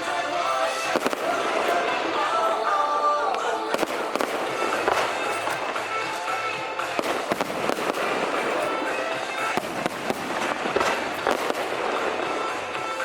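Fireworks and firecrackers going off in rapid, irregular pops and bangs, over music with held melodic notes.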